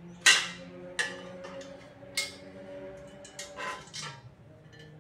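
Hollow metal tubes of a shoe bench frame clanking as they are handled. One sharp clank about a quarter second in sets the frame ringing, two lighter knocks follow at about one and two seconds, then a short rattle near the end as the frame is lifted.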